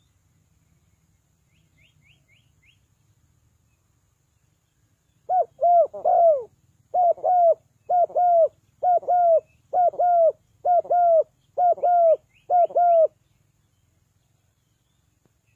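Spotted dove cooing: a run of about eight repeated phrases of two or three falling coos, starting about five seconds in and lasting about eight seconds. A small bird gives faint quick chirps twice.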